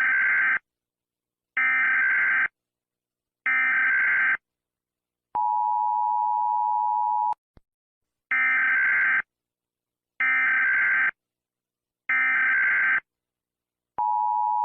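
Emergency Alert System tones: three short bursts of warbling SAME data header, then the steady two-tone attention signal for about two seconds, then three more data bursts and the attention signal again near the end.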